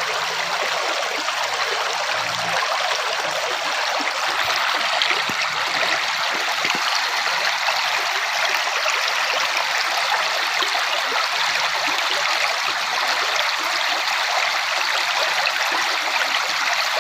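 Rushing water of a stream, a steady continuous splashing rush over rippling water.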